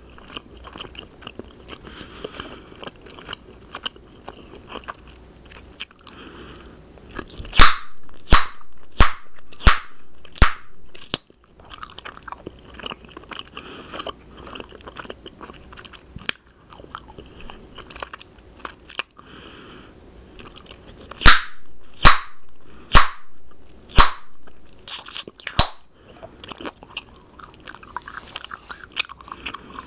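Close-miked bubble gum chewing with wet mouth sounds, broken twice by runs of loud, sharp gum pops in quick succession, about a quarter of the way in and again about two-thirds in.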